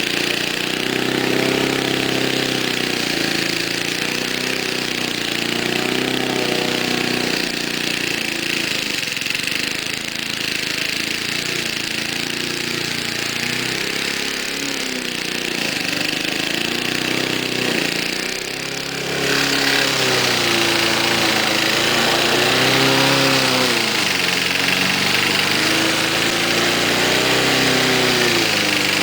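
Small 3.5 hp Briggs & Stratton single-cylinder engine on an MTD push mower running loudly, its speed sagging and recovering every second or two. There is a brief dip about two-thirds of the way in, after which it runs a little louder.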